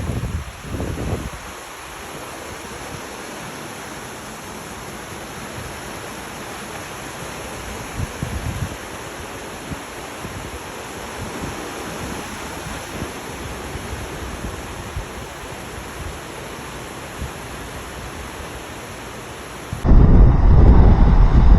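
Steady, even rushing of flowing water. Near the end a much louder low rumble cuts in suddenly.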